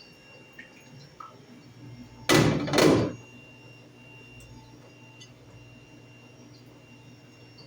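Commercial dishwasher's steady low hum, broken about two seconds in by two quick, loud rushes of noise, under a second in all.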